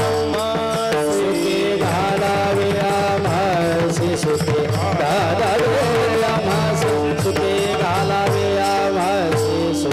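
Devotional kirtan music: steady held keyboard-like notes and a melody that wavers in pitch, over a fast hand-drum beat.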